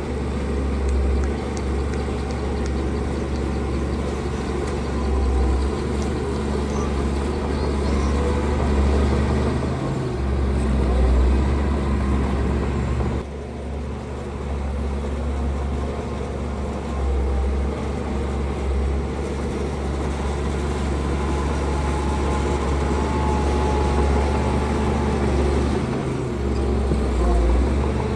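Heavy diesel earthmoving equipment running steadily, with a deep low rumble and a brief drop in level about 13 seconds in.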